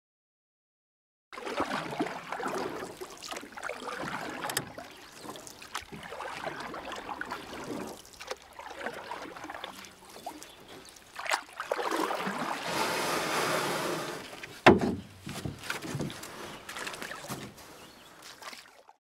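Water sloshing and lapping around a small rowed boat, with a few sharp knocks; it starts about a second in and fades out near the end.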